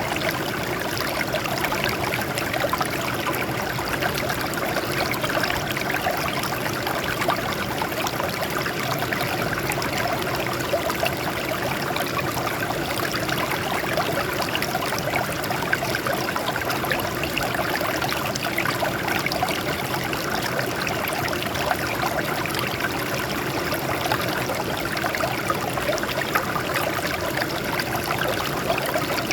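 Water flowing and trickling over rocks in a small stream, a steady splashing burble that holds an even level.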